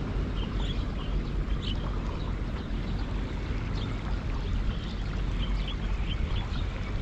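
Steady outdoor background noise, mostly a low rumble, with faint scattered high chirps.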